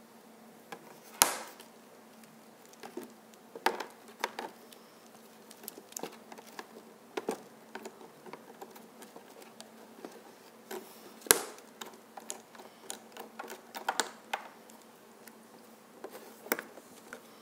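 Scattered small clicks, taps and knocks of plastic StikBot toy figures being handled and set down on a tabletop stage, over a faint steady hum. Two sharper knocks stand out, about a second in and about eleven seconds in.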